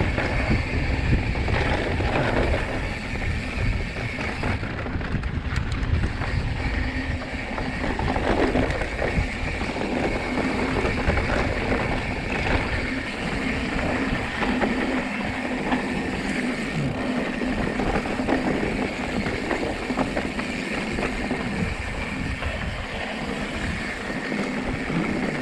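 Riding noise on a mountain bike: wind buffeting the microphone and tyres rolling, with a steady hum underneath.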